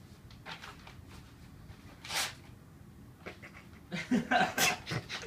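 Large sheet of paper being folded and smoothed: scattered rustles and crinkles, then a louder run of crackling near the end as the paper gets a small tear.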